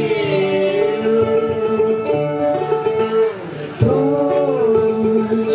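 Live band music between sung lines, with guitar playing under held, gliding melodic tones. The music thins briefly about three seconds in, then comes back with a sharp accent.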